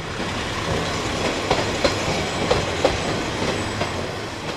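KiHa 20 series diesel railcar running along the track, its DMH17 diesel engine running steadily under the rumble of the wheels. The wheels clack over rail joints, the clacks coming in pairs about a third of a second apart.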